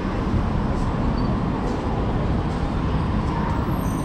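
Busy city street ambience: a steady wash of traffic and crowd noise with a heavy low rumble and faint distant voices.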